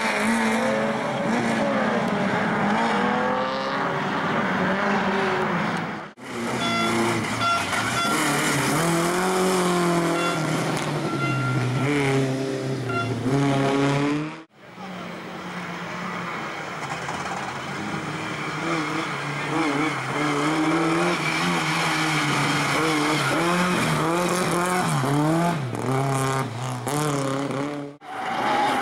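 Rally car engines revving hard, the pitch climbing and dropping again and again through gear changes as the cars drive past. The sound cuts off abruptly about six seconds in, again about halfway through, and once more near the end, where a new stretch of engine noise begins.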